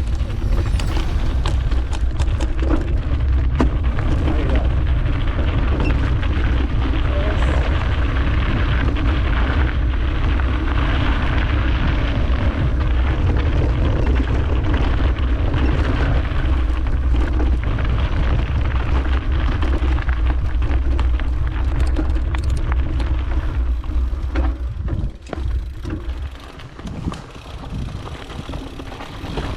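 Mountain bike riding down a trail: heavy wind rumble on the microphone over tyre noise and a constant rattle of small clicks. It eases off and turns patchy near the end.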